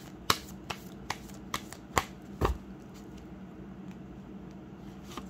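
Tarot deck shuffled by hand: a run of sharp card taps, about two or three a second, ending about two and a half seconds in, followed by only faint light ticks.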